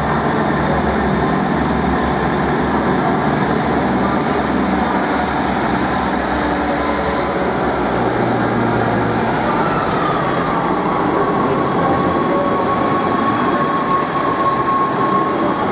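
Class 158 diesel multiple unit moving off and passing close by, its underfloor diesel engines running loud and steady. About ten seconds in, a high whine comes in, dips slightly in pitch and then holds.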